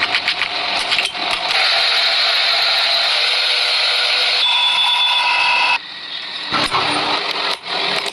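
A power tool grinding metal, a steady, hissy grind that cuts off abruptly about two-thirds of the way in, followed by scattered clicks and knocks of metal being handled.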